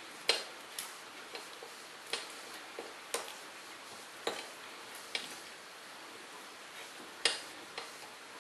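Allen key tightening a set screw on a garage door torsion spring's cable drum by hand, giving short, sharp metal clicks at uneven intervals, about one a second, as the key is turned and reseated in the screw.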